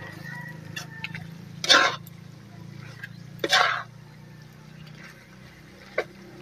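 A metal ladle scraping against a wok twice while beef tapa is stirred, over a steady low hum.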